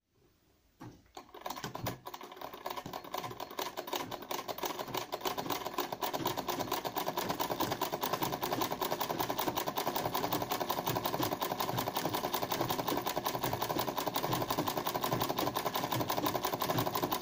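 Domestic straight-stitch sewing machine doing free-motion 'kara makine' embroidery, filling an area with dense stitches. It starts about a second in, builds up over the first few seconds, then runs steadily as a rapid, even stitch-by-stitch clatter.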